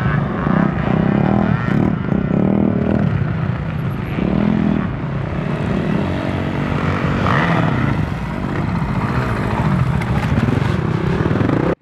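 Dirt bike engines revving unevenly, the pitch rising and falling as the riders work the throttle over rough ground; one bike comes close near the end.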